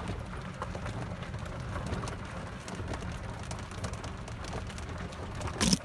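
Steady low rumble and rustling noise of a small open utility vehicle rolling slowly over grass and dirt. A short, loud burst of hiss comes near the end.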